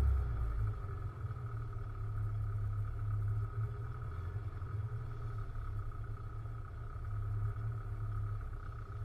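MGB's engine idling with a steady low rumble.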